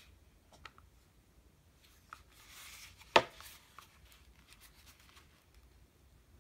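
White plastic 808 Shox BT on-ear headphones being handled: a short rustle, then one sharp plastic click about three seconds in, with a few faint ticks before and after.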